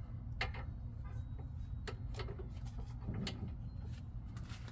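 A few sparse metallic clicks and taps as a brake caliper bracket bolt is worked back into its threads, which feel tight, over a steady low hum.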